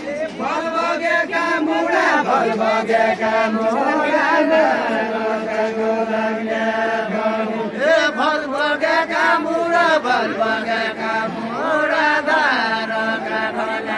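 Voices singing a Deuda, the folk song of far-western Nepal, in long chant-like sung lines.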